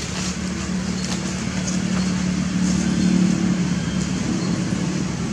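A motor vehicle's engine running with a steady low hum that swells about three seconds in, then eases off.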